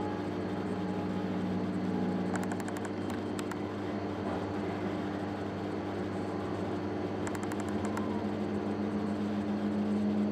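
Steady mechanical hum of reef-aquarium equipment, with a few low pitched tones in it. Two short runs of rapid clicks come about two and a half seconds in and again around seven and a half seconds.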